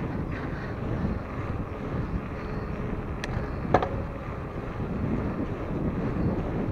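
Wind rushing over the microphone of a camera mounted on a moving mountain bike, a steady low rumble, with two short clicks about three and a half seconds in.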